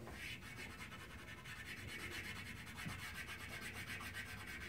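A stick of chalk pastel rubbing and scratching faintly on paper in quick, short back-and-forth strokes as a shape is coloured in.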